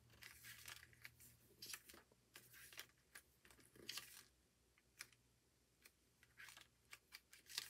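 Faint, scattered paper rustles and soft taps: the pages of an album photo book being handled and turned.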